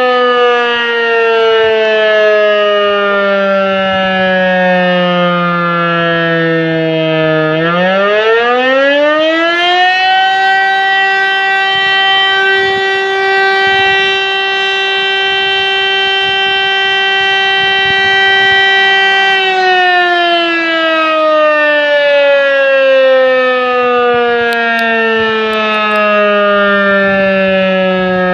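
Fire siren sounding the alarm that calls out the volunteer fire brigade. It winds down in pitch, then rises again about seven seconds in and holds one steady wailing tone for about twelve seconds before sliding slowly down again.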